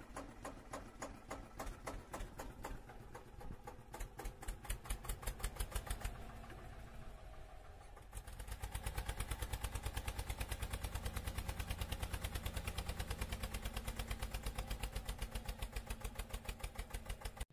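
Tractor engine chugging, uneven at first and then settling about eight seconds in into a steady, fast, regular beat.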